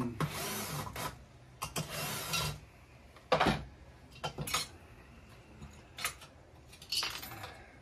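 Hand work on a partly dismantled chainsaw: two short runs of mechanical clicking in the first couple of seconds, then scattered clicks and knocks of metal and plastic parts.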